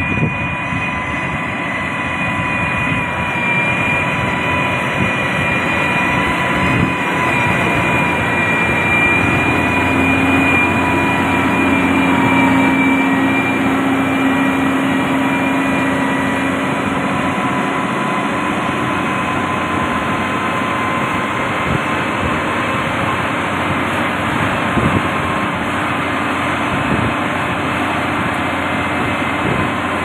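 Diesel engines of heavy road-construction machinery running steadily, with a high whine over the engine noise and a deeper hum that joins from about ten to seventeen seconds in.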